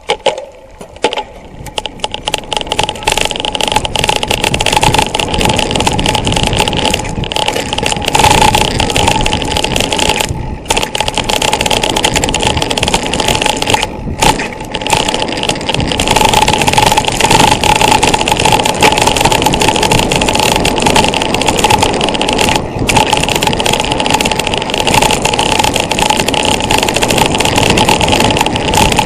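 Wind buffeting a rider-mounted camera's microphone, with mountain bike tyres rumbling over a dirt downhill trail. It builds over the first few seconds as the bike picks up speed, then stays loud with a few short dips.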